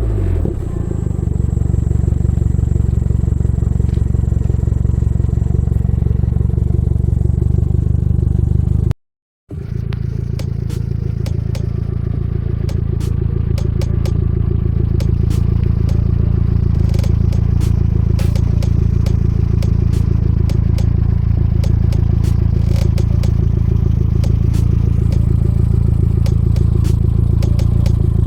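Toyota MR2 GT-S (SW20) exhaust through a Fujitsubo RM01A muffler, its turbocharged 3S-GTE four-cylinder idling steadily. The sound breaks off for about half a second roughly nine seconds in, then the idle goes on with scattered faint clicks.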